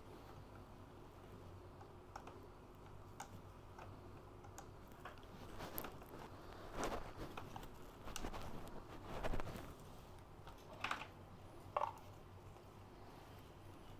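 Faint handling noise of small computer parts: scattered light clicks, a few louder scraping and rustling passages around the middle, and two sharp clicks near the end.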